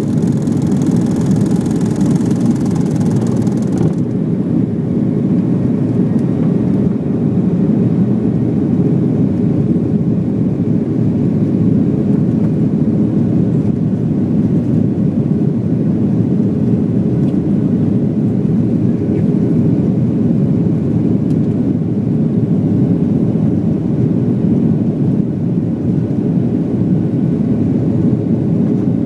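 Boeing 737 taking off and climbing, heard inside the cabin from a window seat over the wing. Its CFM56 turbofan engines at high thrust make a loud, steady low rush and rumble. A higher hiss over it cuts off about four seconds in.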